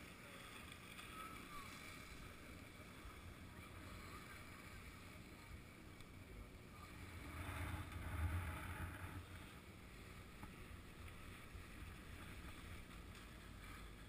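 Faint steady wind and air noise on a chairlift rider's helmet camera. About eight seconds in, a low rumble swells and fades as the chair passes a lift tower.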